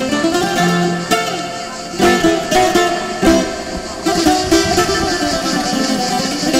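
Bouzouki music: a quick melody of sharply picked notes.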